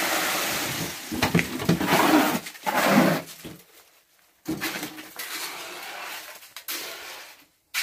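Metal hand tool scraping and scooping through wet concrete in uneven strokes, pausing briefly about halfway through.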